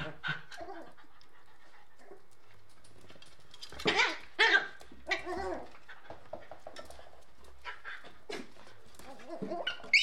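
Two Shiba Inu puppies play-fighting and vocalizing at each other in short pitched cries. The loudest pair comes about four seconds in, with small clicks and scuffles scattered between.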